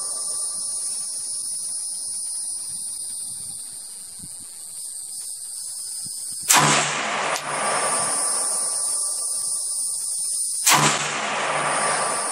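Two shots from a PTR-91 rifle in 7.62x51 (.308), about four seconds apart, each a sharp crack with a long echoing tail. Insects buzz steadily and high-pitched throughout.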